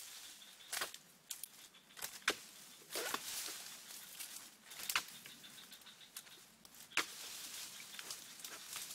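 Dry palm fronds and leaves rustling and crackling, with sharp snaps every second or two as a long harvesting pole works through an oil palm.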